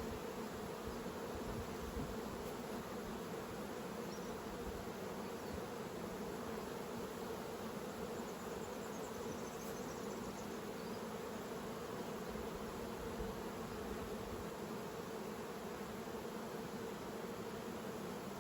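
Honeybees from an opened hive buzzing, a steady hum from many bees at once.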